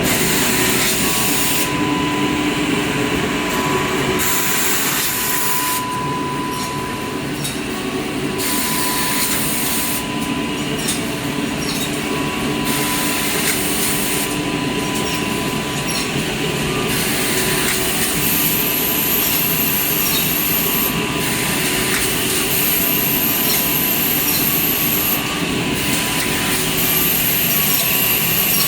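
Edge banding machine running steadily, with a high hiss that cuts in and out every few seconds and a thin high whine joining in during the last third.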